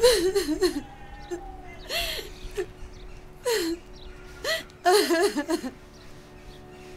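A woman sobbing: wavering, shaky cries broken by sharp gasping breaths in, five or six bouts in all, dying away near the end.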